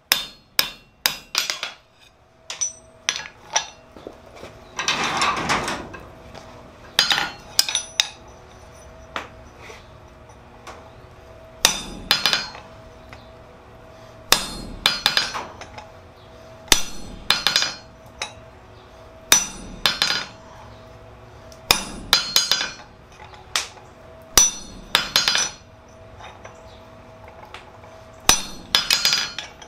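Blacksmith's hammer striking a red-hot steel crowbar on the anvil, in short flurries of blows a few seconds apart, with the anvil ringing faintly between them. A rushing noise lasting about a second comes in about five seconds in.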